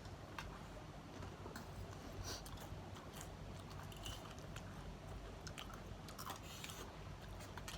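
Close-mic chewing and crunching of crisp spicy snacks, with irregular sharp crackles as the pieces are bitten and chewed.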